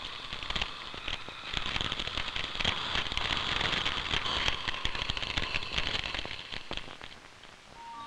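Fire crackling as flames burn up a wooden door frame: a dense hiss full of sharp snaps and pops. It swells about a second and a half in and dies away near the end.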